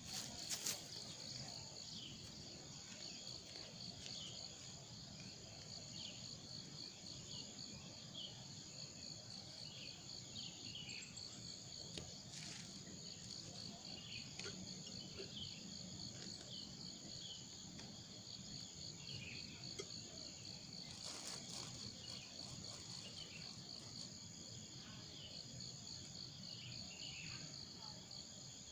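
Forest ambience of insects trilling in a steady, fast-pulsing high buzz, with short falling chirping calls scattered through it. There are a couple of brief clicks, about half a second in and again about 21 seconds in.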